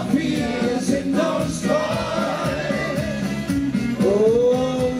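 A Schlager song performed live, with male and female singers on microphones over instrumental backing music. A long sung note rises and falls near the end.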